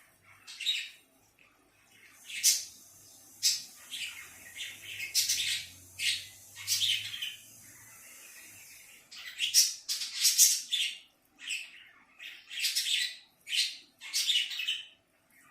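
An animal's short, harsh, scratchy calls, a dozen or so in irregular bursts, with a lull of about two seconds in the middle.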